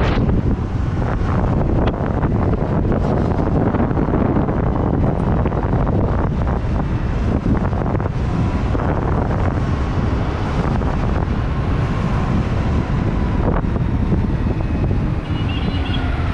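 Wind buffeting a helmet-mounted camera's microphone while riding an electric dirt bike at speed: a steady, heavy rush. A faint whine falls in pitch near the end.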